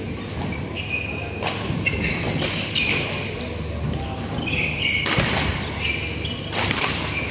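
Badminton court sounds echoing in a large hall: short high-pitched squeaks of shoes on the court mat and sharp racket-on-shuttlecock strikes, the loudest about five and about seven seconds in, over background chatter.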